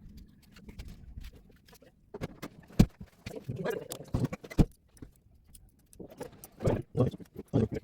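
Irregular clicks, taps and knocks of small tools and a circuit board being handled on a workbench while desoldering, with one sharp, loud click a little under three seconds in.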